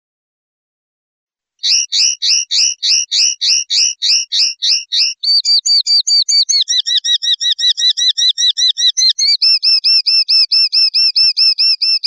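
Common linnet singing in runs of repeated notes, starting about a second and a half in. The first run is slower, about three notes a second, and it changes to quicker runs of about six notes a second.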